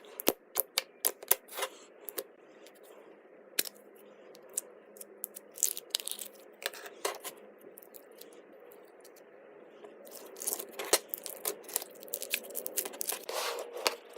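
Slime being squished and stretched by hand, making sharp clicks and pops. They come in quick clusters near the start and again over the last few seconds, and are scattered in between.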